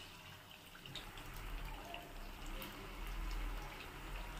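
Garelu (rice-flour and broad bean fritters) deep-frying in hot oil: a steady sizzle dotted with small crackles, over a low rumble that grows a little louder after about a second.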